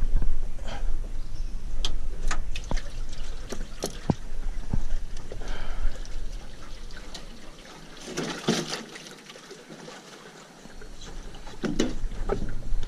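Water trickling and splashing, with scattered knocks and clatter on the aluminium boat, as a caught fish is put into the live well. A louder rush of splashing comes about two-thirds of the way through.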